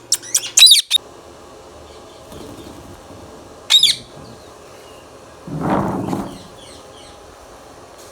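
Indian ringneck parrot giving a quick run of sharp, high calls in the first second and one more shrill call about four seconds in. A brief rustling burst follows about six seconds in.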